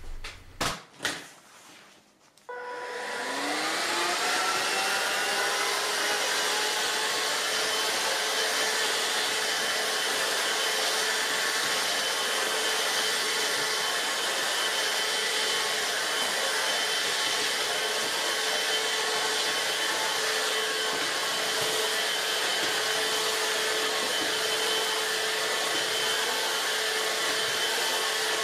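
Dibea F6 cordless stick vacuum switched on after a few knocks: its motor spins up with a rising whine, then runs at a steady pitch as it vacuums quartz sand out of a dirt mat.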